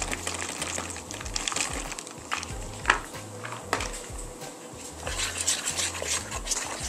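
Chopped walnuts poured into a bowl of waffle batter, then a wire whisk stirring the batter and clicking against the bowl. The clicks come in a quick cluster over the last two seconds.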